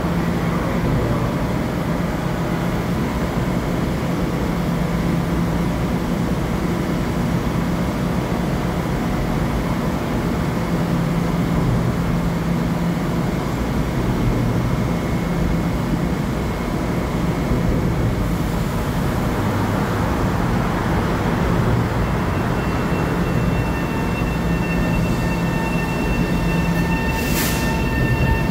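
Long Island Rail Road M7 electric train idling at the platform with a steady electrical hum and whine, then starting to move. Higher steady whine tones come in over the last several seconds, and there is a brief hiss near the end.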